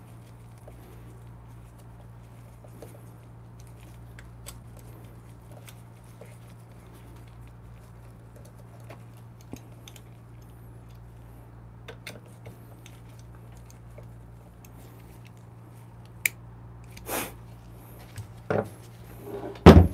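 Faint scattered metal clicks and clinks of a small hand tool and screw being worked on a coffee grinder's metal top, over a steady low hum. A few louder knocks and handling sounds come near the end.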